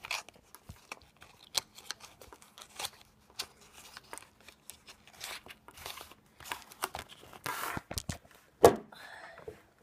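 Small cardboard toy-car box being handled, with scattered clicks, light knocks and short rustles. A longer rustle comes about three-quarters through, and a sharp knock near the end as the box is set down on the table.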